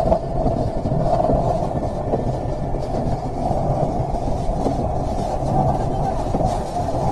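Typhoon wind and rain making a steady low rumble, with the wind buffeting the microphone.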